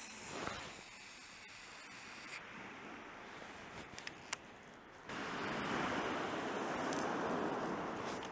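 Sea surf washing on the beach as a steady rushing hiss, much louder from about five seconds in, with a few faint clicks just before.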